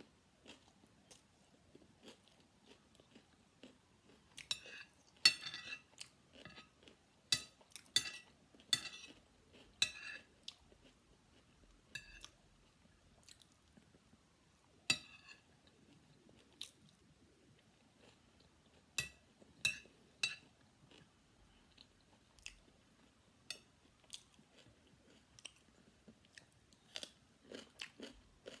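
Close-miked chewing of a mouthful of fried rice, with soft crunches. About a dozen sharp clinks in the middle stretch come from a metal spoon striking a ceramic plate.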